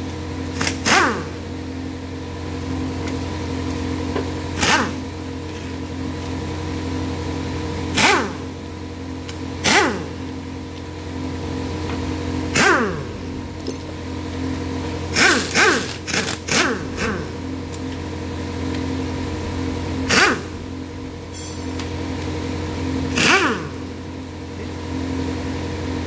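Pneumatic impact wrench firing in about a dozen short bursts a few seconds apart, with a quick cluster of them in the middle, each ending in a whine that falls in pitch as the tool spins down, as bolts are loosened to take the engine apart. A steady low hum runs underneath.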